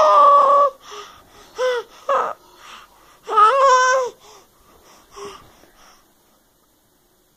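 Seven-month-old baby squealing and babbling in high-pitched bursts with gasping breaths: a long squeal at the start, two short ones about two seconds in, another long one about three and a half seconds in, then softer breathy sounds that trail off about six seconds in.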